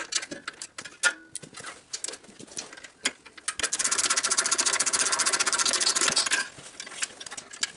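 Hand ratchet clicking in a fast, even run for about three seconds, starting about three and a half seconds in, as a gas-tank mounting bolt is backed off. Before the run come scattered small metal clicks and taps of the wrench on the fastener.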